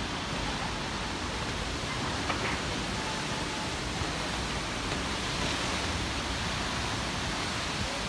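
Heavy rain falling during a storm: a steady, even hiss with a low rumble underneath.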